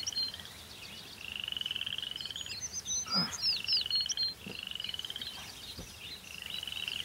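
Frogs calling: a pulsed trill about a second long, slightly rising, repeated four times, with small birds chirping thinly above it. A brief falling sound cuts in about three seconds in.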